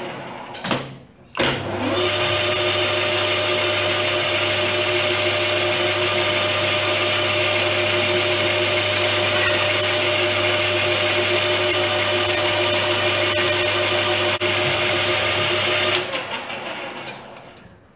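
Small metal lathe running while facing off a part: it starts up in the first two seconds, runs with a steady motor hum and high whine, then is switched off about sixteen seconds in and spins down.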